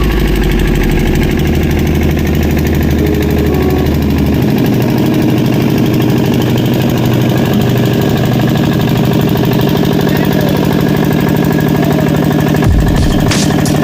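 Hyundai 85A excavator's diesel engine running steadily, its lowest note dropping away about four and a half seconds in.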